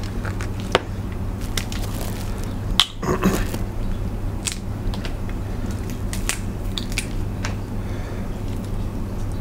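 Cooked crab shell being cracked and pulled apart by hand, with scattered sharp cracks and snaps and a crackly crunching cluster about three seconds in. A steady low hum runs underneath.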